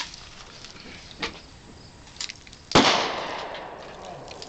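A single loud gunshot about three seconds in, its echo trailing off over about a second. Before it come a few light clicks of gravel being scooped up by hand.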